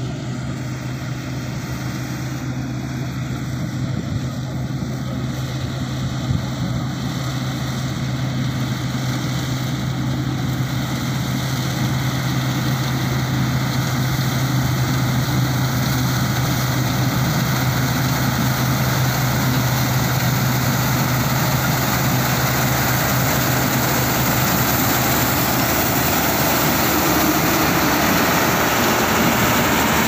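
New Holland combine harvester running as it cuts standing wheat, a steady low engine drone growing steadily louder as it comes close.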